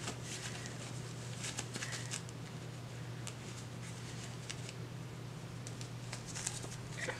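Soft rustling and crinkling of a disposable diaper and baby wipes being handled and folded away, a string of small light clicks over a low steady hum.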